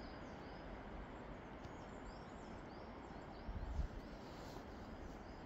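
Forest ambience: a small bird repeating short high chirps over a steady soft hiss, with a brief low rumble about three and a half seconds in.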